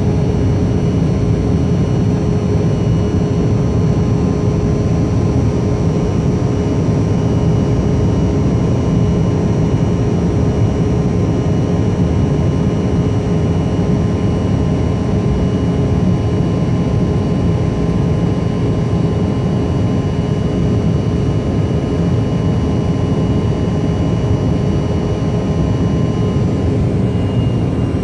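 Cabin noise of a twin-engine jet airliner climbing after takeoff: a steady rumble of engines and rushing air with several constant whining tones over it. Near the end, one of the higher tones dips slightly in pitch.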